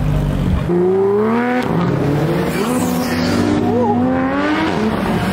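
Car engine accelerating hard, its pitch climbing, dropping at a gear change about a second and a half in, then climbing again.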